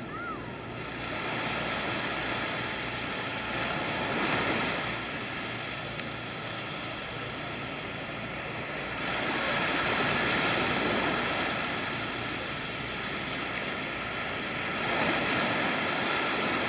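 Small waves breaking on a sandy beach and their foam washing up the sand on an incoming tide, the surf swelling louder and easing off several times.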